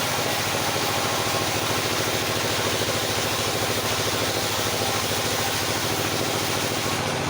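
Engine of a circular sawmill running steadily, with an even hiss laid over it that fades out just before the end.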